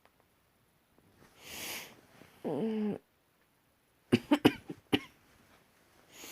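A person breathing heavily: a breath, then a short voiced sigh that falls in pitch, followed about a second later by a quick run of sharp clicks.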